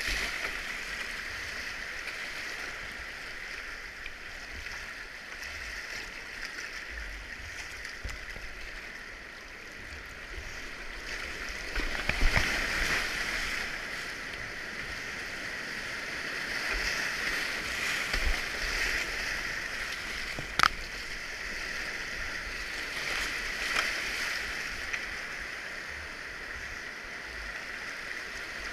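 River whitewater rapids rushing steadily, heard from a camera low at water level on a kayak. The water surges louder about twelve seconds in, and a single sharp knock comes about twenty seconds in.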